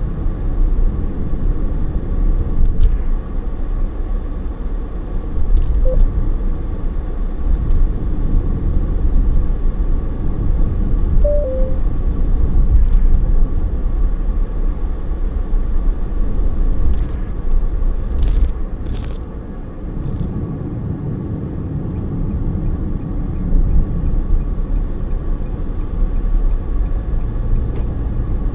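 Car driving along a road, heard from inside the cabin: a steady low rumble of tyres and engine, with a few faint clicks.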